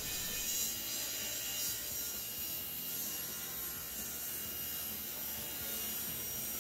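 Table saw running and crosscutting a glued-up hardwood panel into strips, a steady sawing noise.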